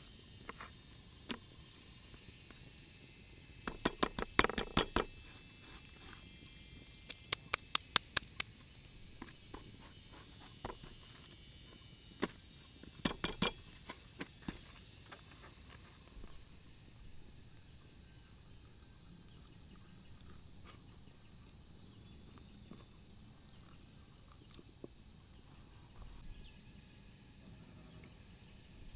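A steady high insect chorus runs throughout, under bunches of sharp wet clicks and small taps from hands pulling the skin off raw meat on a wooden cutting board; the clicks come in clusters about four, eight and thirteen seconds in.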